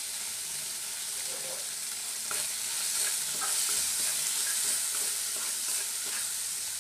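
Ground spice paste of cumin, dried chilli and ginger sizzling in oil in a metal kadai. From about two seconds in, a spatula stirs and scrapes it against the pan.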